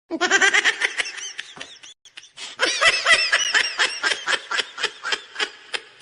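A meme laughing sound effect: two bouts of quick, high-pitched giggling, the second longer and trailing off toward the end.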